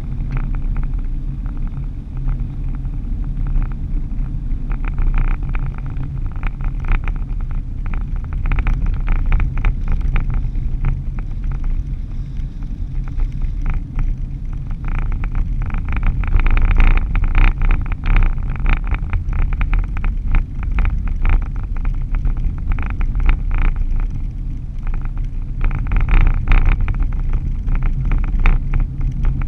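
Engine and road noise of a moving vehicle heard from inside the cab: a steady low rumble with frequent crackling rattles that come and go, heaviest in patches past the middle and near the end.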